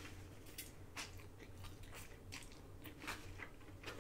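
Chewing a mouthful of lo mein noodles: faint, irregular mouth clicks and smacks.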